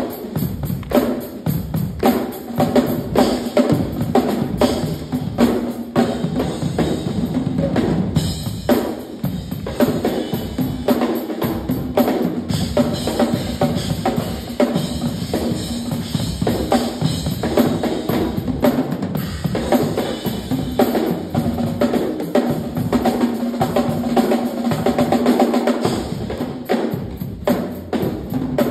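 Two drum kits played together in a duet: fast, dense snare, bass drum and tom strokes with no break.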